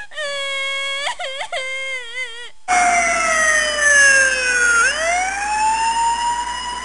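Held, pitched wailing tones that bend in pitch at their ends. About three seconds in, a loud emergency-vehicle siren cuts in, sweeping slowly down in pitch and then rising again.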